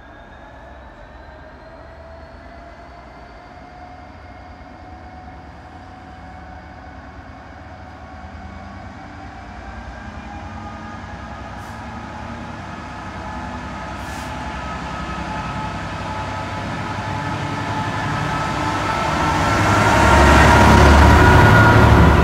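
Diesel freight locomotive approaching and passing close, its engine note slowly rising in pitch and growing steadily louder, loudest as the locomotive draws level near the end, with the wagons starting to rumble by. Two faint clicks midway.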